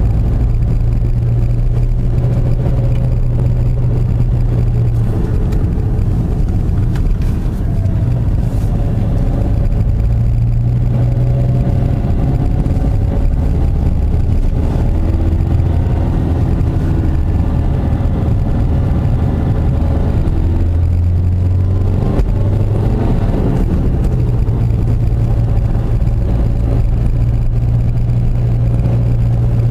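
A car engine running steadily, with tyre and road noise, heard from inside the cabin on a winding road. The engine note drops lower through the middle, then climbs back up a little after twenty seconds as the car accelerates.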